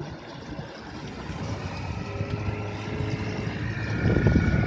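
A motor running steadily with a few steady tones, growing louder, over wind rumbling on the microphone.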